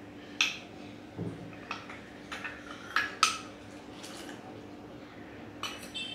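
Steel spoon and steel saucepan clinking and scraping as cornflour is stirred into milk heating in the pan: a string of irregular light clinks, the sharpest about half a second and three seconds in.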